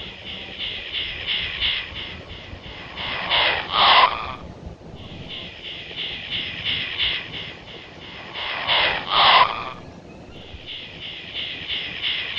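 An unidentified animal calling from inside a tree: runs of rapid, evenly spaced clicking pulses, twice building into a cluster of two or three loud, harsh calls.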